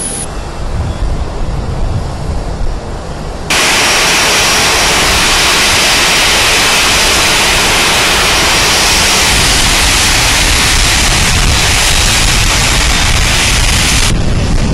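Jet engines of a twin-engine Boeing 737 airliner running as it taxis: a loud, steady rushing hiss with a faint high whine. It starts abruptly a few seconds in and cuts off abruptly near the end, after a lower rumble.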